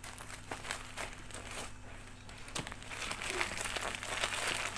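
Plastic mailer parcel being handled, its wrapping crinkling with scattered small rustles and clicks that grow denser and louder about three seconds in. A steady low hum runs underneath.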